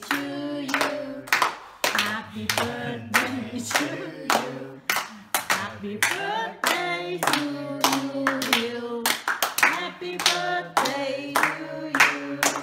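A small group of voices singing together while clapping along in a steady rhythm.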